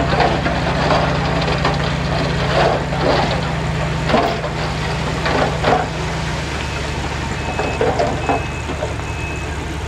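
Diesel engine of heavy earthmoving machinery running steadily, with scattered clanks and knocks over the first six seconds. From about seven seconds in, a backup alarm beeps repeatedly, a bit more than once a second.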